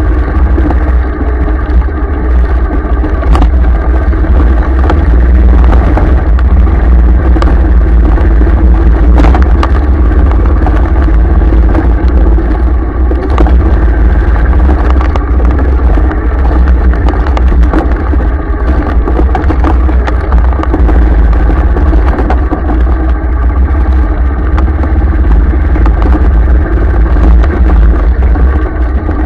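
Vehicle engine running steadily under a heavy low rumble of wind and road noise as it drives along a rough dirt track, with occasional sharp knocks and rattles.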